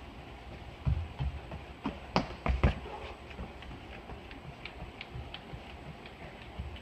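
Running footsteps on a hardwood gym floor: heavy thuds between about one and three seconds in as the runner passes close, then fainter, lighter steps as he runs away.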